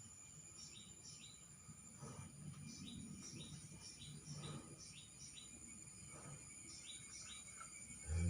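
Quiet farmyard ambience: small birds chirping in short falling notes, often in pairs, repeating throughout, with a few fainter calls lower down. A cow starts to moo at the very end.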